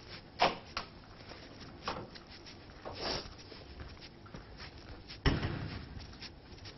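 Scattered light knocks and clicks of things being handled, with one louder thump a little over five seconds in.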